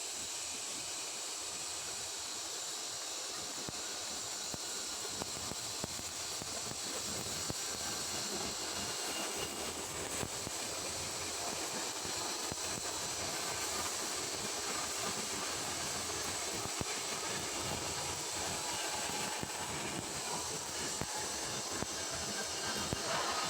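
Electric arc welding on a carbon steel pipe: a steady, crackling hiss from the arc that runs without a break.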